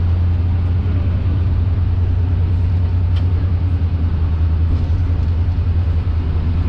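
Diesel railcar running along the line, its engine and running gear giving a steady low drone with a fine, even pulse, heard from on board; a small click sounds about three seconds in.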